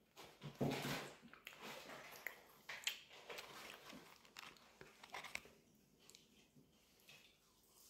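Close-miked mouth sounds of a person biting into and chewing a McDonald's fish fillet sandwich. The chewing is loudest just under a second in, continues as short clicky chews, and grows quieter near the end.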